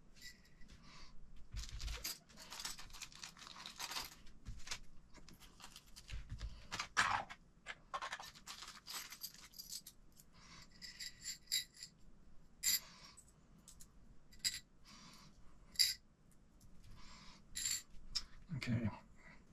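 Small metal screws and pins for an RC car kit clinking against each other and against a clear plastic parts tray as they are sorted by hand. There is a stretch of rustling about two seconds in, and scattered clinks throughout.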